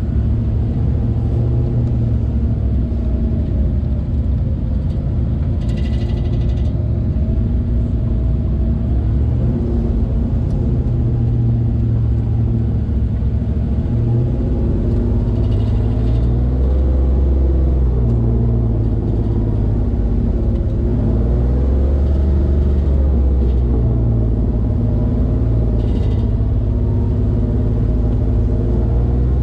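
Off-road vehicle's engine running steadily as it crawls along a rock trail, a low drone that rises and falls a little in pitch with the throttle.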